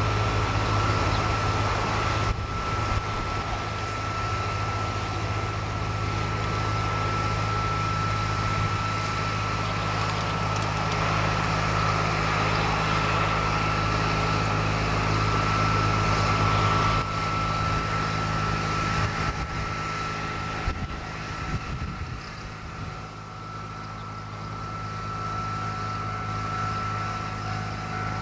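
Steady distant vehicle drone with a constant high-pitched whine through it; it eases off a little late on.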